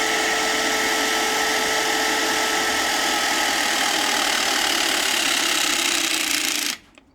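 Power tool motor spinning up with a quick rising whine, then running steadily at one pitch under a loud hiss for about seven seconds, and stopping abruptly near the end.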